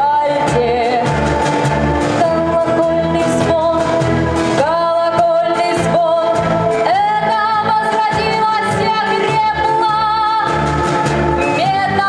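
A woman singing solo into a handheld microphone over a musical accompaniment with a steady bass beat, holding long notes with vibrato.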